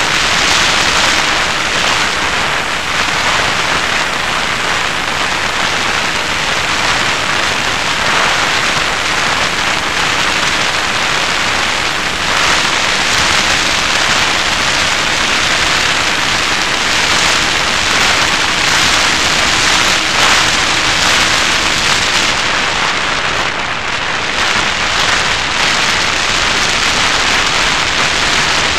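Steady rush of wind over the onboard camera of a Raptor FPV model plane in flight. A faint steady tone runs underneath and fades out about two-thirds of the way through.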